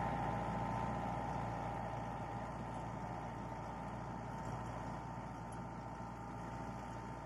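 Yanmar compact tractor's diesel engine running steadily while it pushes snow with a rear blade, slowly growing fainter as it pulls away.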